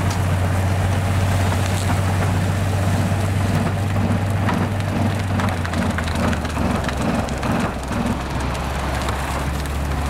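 Railway rotary snowplow running: its motor and spinning rotor give a steady low drone while the snow and ice chunks it throws make a dense crackling hiss. The drone drops lower about two-thirds of the way through.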